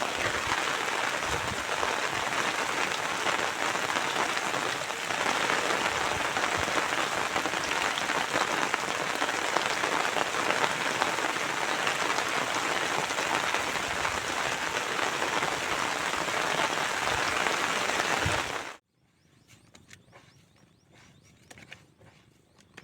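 Heavy rain falling steadily, a dense even hiss that cuts off abruptly near the end, leaving only a few faint ticks.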